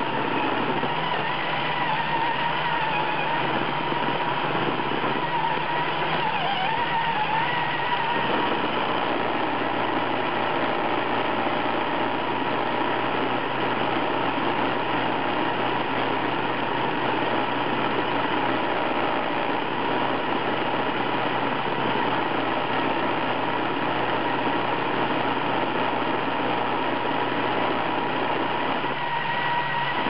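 iRobot Roomba robot vacuum running over carpet, heard from on top of the machine: a steady whir of its vacuum motor and brushes with a steady high whine.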